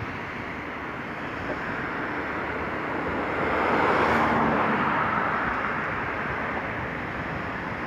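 Road traffic on the street below: cars driving past, one passing close with its tyre noise swelling to loudest about four seconds in and then fading.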